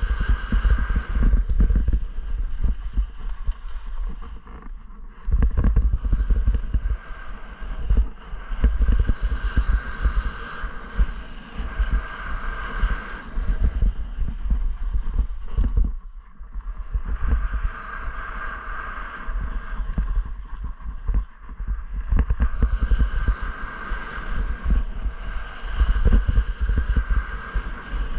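Wind buffeting a helmet-mounted action camera's microphone during a ski descent, a gusty low rumble. Under it, skis scrape over packed snow with a hiss that swells and fades every few seconds, with the turns.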